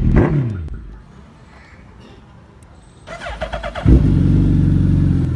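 Suzuki Hayabusa inline-four engine. Near the start a falling rev dies away. About three seconds in the starter cranks briefly, then the engine catches with a sudden loud jump about four seconds in and settles into a steady idle.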